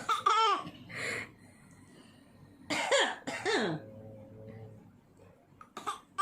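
Short human coughs, about four, some voiced with a pitch that drops: a baby and a grandmother coughing back and forth, the baby mimicking the grandmother's cough.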